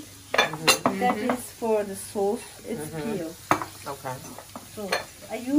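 Glass jars clinking sharply a few times as they are handled and set down on a kitchen counter, over indistinct voices.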